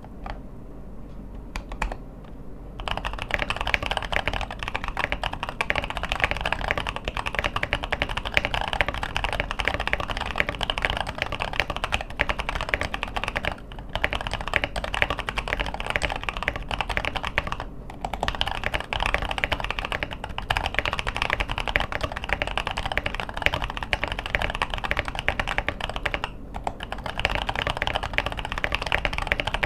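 Typing on a Fantech Maxfit61 / Vortexseries VX5 Pro 60% mechanical keyboard in a DIY tray-mounted acrylic tofu-style case. A few isolated key taps give way, about three seconds in, to a dense, steady stream of keystroke clacks, broken by a few brief pauses.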